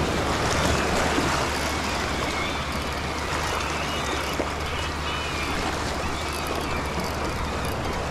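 Small sea waves washing and swirling over rocks at the water's edge, a steady rush of surf.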